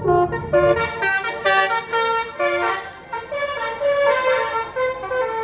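Tour bus's basuri 'telolet' musical air horn playing a quick tune of stepped notes, several tones sounding together.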